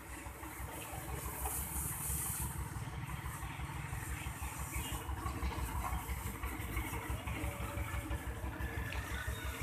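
An engine idling with a steady low throb.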